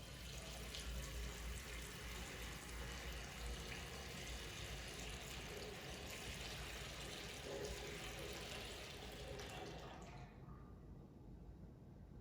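Water being poured into a baptismal font, a steady splashing pour that stops about ten seconds in.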